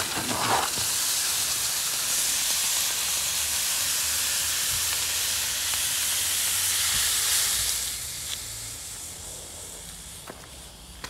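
Hot cast copper sitting on a block of ice, sizzling and hissing as the melting ice turns to steam. The hiss dies down about eight seconds in, leaving a weaker hiss with a few faint ticks.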